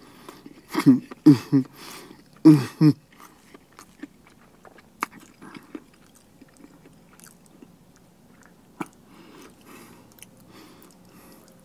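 A person chewing a bite of a McGriddle and McChicken sandwich, soft griddle cake and fried chicken patty, with closed-mouth smacking and small wet clicks. There are a few short hums in the first three seconds.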